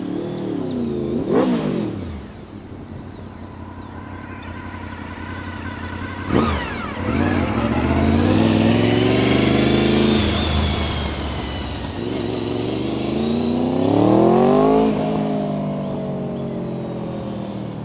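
Honda VFR750F's V4 engine through an aftermarket slip-on exhaust, revving hard as the motorcycle accelerates past: a brief rise and fall in pitch near the start, a sharp blip about a third of the way in, then a long climbing note, a second strong rise and a falling pitch as it pulls away.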